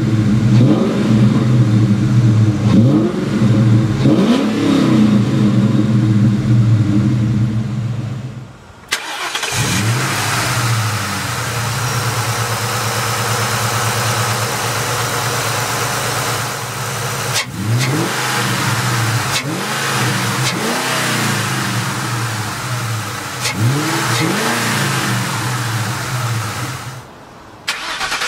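A 2003 Ford Mustang Mach 1's 4.6-litre DOHC V8 running at idle, blipped several times. Each blip is a quick rise and fall in pitch, and they come in clusters.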